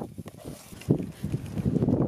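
Metal spoon scraping and knocking against a metal cooking pot as thick rice-and-meat stew is stirred and scooped out, in irregular strokes that pick up after about a second.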